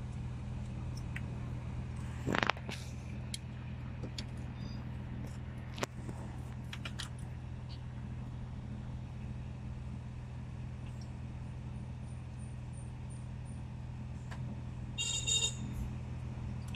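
Plastic car wiring-harness connectors clicking and knocking as they are handled and unplugged, over a steady low hum in the car cabin. A brief high-pitched tone sounds about fifteen seconds in.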